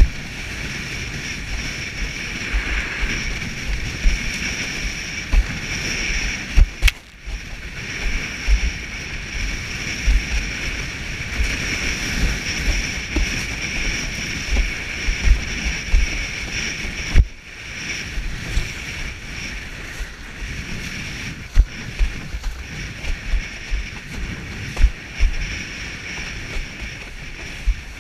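Wind rushing over the microphone and water rushing past a windsurf board sailing through choppy sea, with frequent irregular low thumps as the board slaps the chop.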